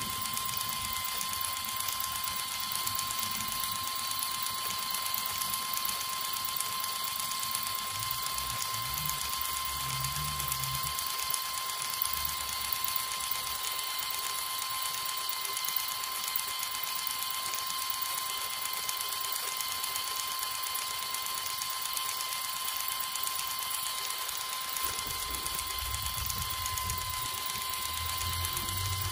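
Small motor of a miniature tractor driving a homemade miniature chaff cutter through a belt and pulley, giving a steady high-pitched whine while hand-fed green grass stalks are chopped.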